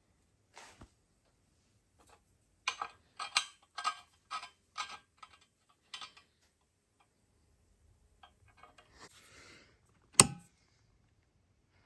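A run of sharp clicks and light knocks, about two a second, then a short soft hiss and one loud sharp knock near the end: hand work with tools and parts.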